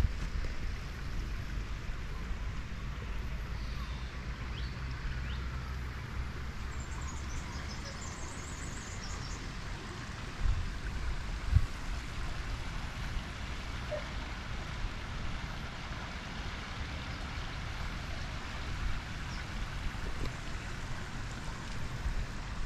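Outdoor ambience: wind rumbling on the microphone over a steady hiss, with a short run of high chirps about a third of the way in. Two sharp thumps about halfway through, the second the loudest sound.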